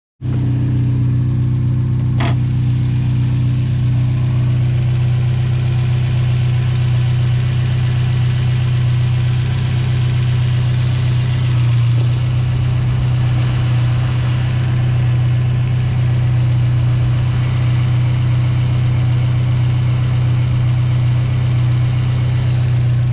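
Subaru WRX STI's turbocharged flat-four boxer engine idling steadily with the hood open, hot from a drive. There is a single sharp click about two seconds in.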